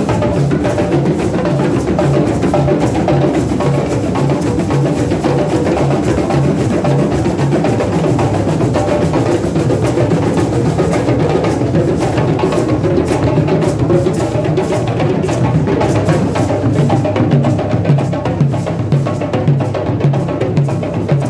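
A group of djembes, rope-tuned goblet hand drums, played together with bare hands in a steady, dense rhythm with a deep repeating bass pulse.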